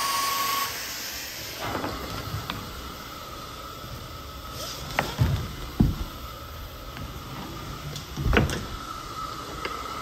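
Carpet-cleaning wand and vacuum hose. The loud suction with its whine drops about a second in, leaving a fainter hiss and whine from the hose. Several thumps and knocks follow as the wand and hose are handled and dragged, twice around the middle and once more later.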